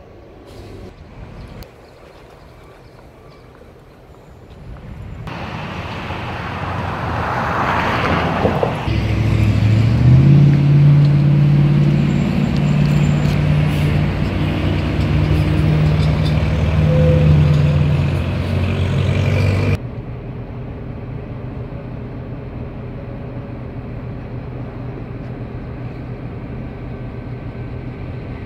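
Diesel locomotive engine, an ex-Canadian National GP9's V16 two-stroke EMD, starting up. A surge of noise comes as it turns over, then the engine catches and runs loud with a deep, steady drone that steps in speed. It cuts off abruptly into a quieter, steady engine rumble.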